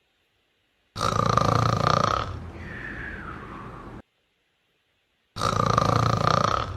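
A sleeping cat snoring, twice. Each snore is a loud breath with a steady tone, about a second long, followed by a quieter breath whose tone falls in pitch. There is dead silence between the snores.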